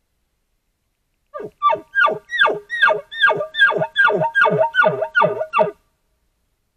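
An animal calling: a quick run of about ten loud yelping calls, each falling steeply in pitch, about two to three a second, starting a little over a second in and stopping abruptly near the end.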